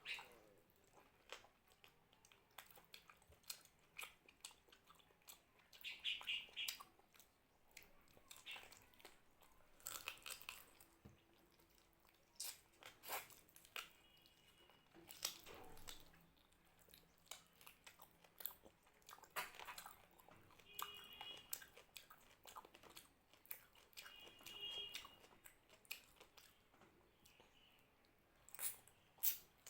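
Close-up chewing and mouth sounds of someone eating mutton curry and rice: irregular wet smacks and clicks with a few short squeaky bits.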